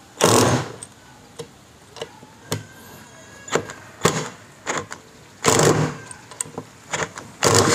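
Ingco S12 (CIRLI1201) 12 V cordless impact driver run in reverse in several short bursts of hammering on a 3-inch wood screw that will not back out: the tool lacks the torque to remove it.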